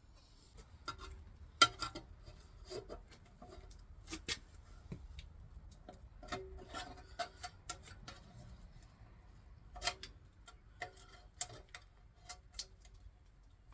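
Irregular metallic clicks and clinks of hand tools against a Chevy 350 small-block's parts as it is taken apart, a few of them sharper knocks.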